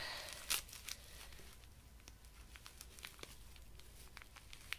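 Tissue paper crinkling and rustling as it is unwrapped by hand from a small doll part, loudest in a crinkle about half a second in, then faint scattered rustles.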